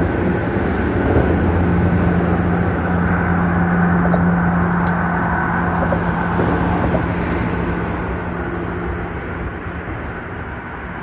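Traffic crossing the highway bridge overhead: a steady road rumble with a low hum that slowly fades over the last few seconds.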